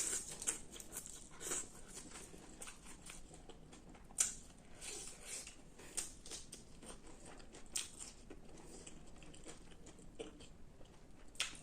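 A person chewing and eating close to the microphone: irregular, soft crunches and wet mouth clicks, with a few sharper crunches.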